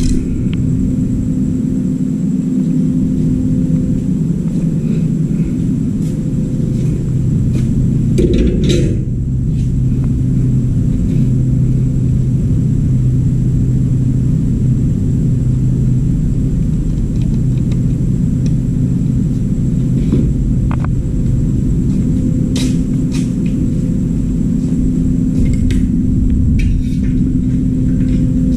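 Steady low machine hum with a few short knocks and clatters.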